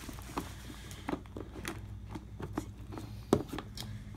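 Hands handling a cardboard board-game box: a string of light taps and scrapes, with one sharper knock about three seconds in.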